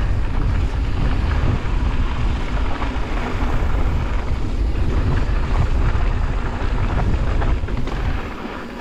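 Wind buffeting the microphone over the rumble of mountain bike tyres on a rough dirt trail at speed, with scattered clicks and rattles from the bike over bumps. The noise drops away near the end as the bike slows.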